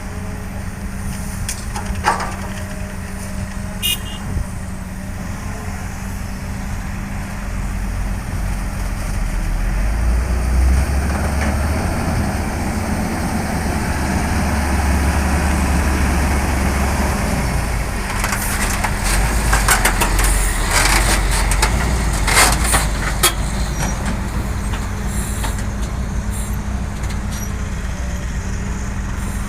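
Heavy diesel construction machinery running steadily, its deep engine rumble building and working harder for about ten seconds. This is followed by a string of sharp metallic clanks and knocks.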